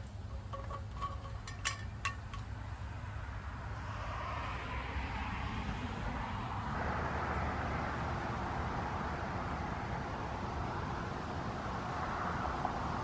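Vehicle noise swelling up about four seconds in and staying up, over a steady low rumble of wind and traffic. A few light clicks come near the start.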